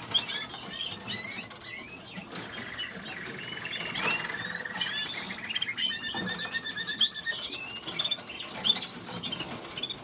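Many canaries singing and chirping together, with two long rapid trills a few seconds apart, and wings fluttering in the cages now and then.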